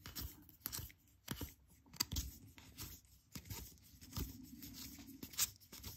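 A stack of Topps baseball cards being handled and flipped through by hand, the cards sliding and tapping against one another in faint, irregular clicks and rustles.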